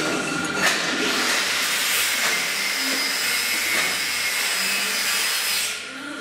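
A loud steady rushing hiss, like air or steam escaping, that drops away near the end, with a few sharp metal clicks from the chuck key being worked in the lathe's three-jaw chuck.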